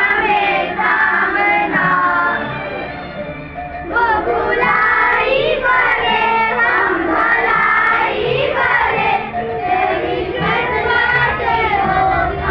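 Group of children singing a prayer together in unison. The singing dips for a moment, then comes back fuller about four seconds in.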